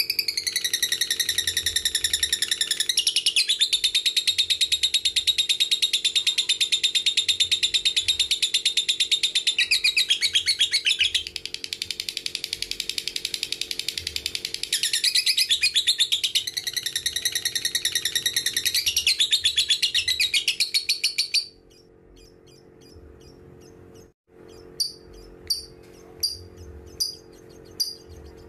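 A lovebird's long 'ngekek': a rapid, unbroken high chattering trill that goes on for about twenty seconds and then stops. A few short separate chirps follow, about one a second.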